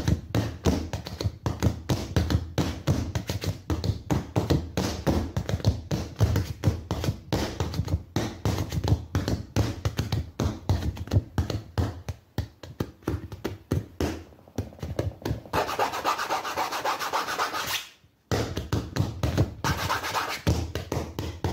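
Hands drumming on a large stretched blank canvas, with rapid finger and palm taps and thunks mixed with brushing rubs across its face. A few seconds of steadier rubbing cut off briefly about eighteen seconds in, then the tapping resumes.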